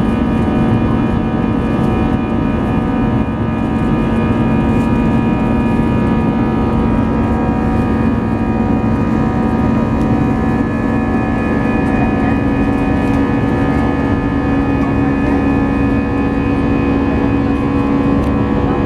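Airbus A319's jet engines heard from inside the cabin over the wing while climbing after takeoff: a steady, loud roar with a deep hum and several steady whining tones.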